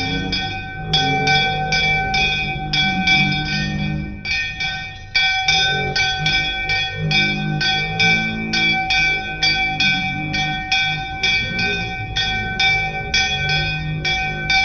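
Puja hand bell rung rapidly and steadily for the aarti, about four strokes a second, its ringing held on between strokes, with singing underneath.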